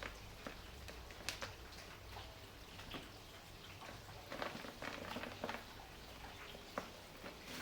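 Soft dried sand-and-cement chunks crumbling, with scattered gritty crackles and ticks that come thicker about halfway through, over a soft rain sound.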